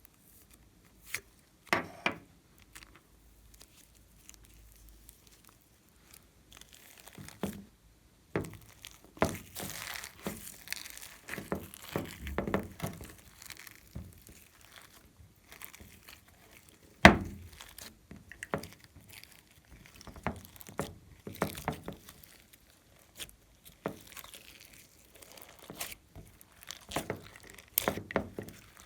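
Slime being worked by hand: irregular crinkling crackles and sticky squishes and clicks, with one loud sharp snap about 17 seconds in.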